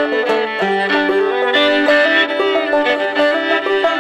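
Fiddle and fretless clawhammer banjo playing an old-time string-band tune together, the bowed fiddle melody over the quick plucked rhythm of the banjo.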